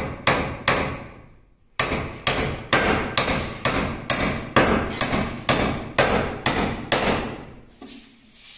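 Hammer driving nails into timber ceiling brandering battens under the roof trusses: a steady run of sharp blows, about three a second, with a short pause about a second in and softer blows near the end.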